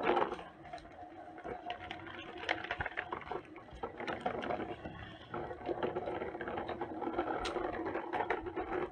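Small electric motor of a remote-control toy construction vehicle whirring steadily, with scattered clicks and scrapes, louder in the second half.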